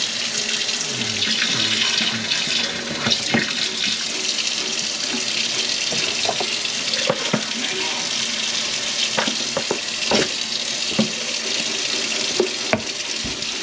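Kitchen faucet running a steady stream into a stainless steel sink and down the drain, the drain being run to test it after a full P-trap was cleared. A few light knocks and clunks of things handled at the sink break through now and then.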